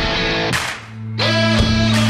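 Rock music with electric guitar: a sharp hit about half a second in, then a held chord with a bending guitar note from just over a second in.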